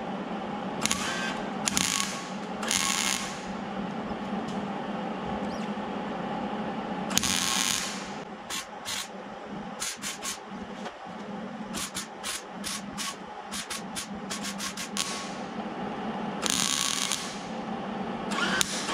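MIG welder laying short, spaced tack welds on a sheet-steel wheel arch repair panel, which keeps the heat down so the panel does not warp. The arc crackles in separate bursts: a few of about half a second near the start, a quick run of very short blips in the middle, and more near the end, over a steady background hum.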